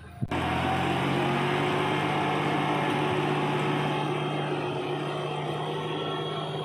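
Farm tractor's diesel engine running steadily while pulling a rear levelling blade through loose soil. It cuts in abruptly with a sharp click about a quarter second in.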